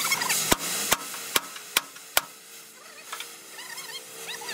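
Five hammer blows in an even rhythm, about two and a half a second, stopping a little past halfway.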